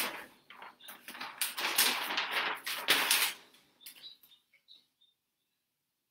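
A large sheet of drawing paper rustling and flapping as it is lifted and held up, the rustling fading out about three seconds in, with a few faint crinkles after.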